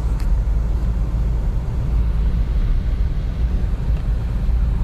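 Car driving slowly on a snow-covered road, heard from inside the cabin: a steady low rumble of engine and tyres.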